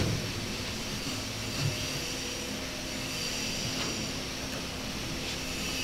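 A steady machine-like hum runs throughout, with a couple of faint knocks as the rusted turret collector ring is worked by hand.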